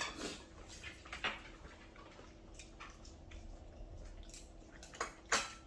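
Close-up wet eating sounds of curry rice: chewing and small sticky mouth clicks, with a few sharper ticks. The loudest come about a second in and just after five seconds in.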